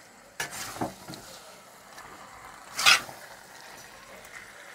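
A perforated metal slotted spoon stirring chicken pieces through a thick masala in a pan, with a few scraping strokes against the pan, the loudest about three seconds in, over a low sizzle of frying.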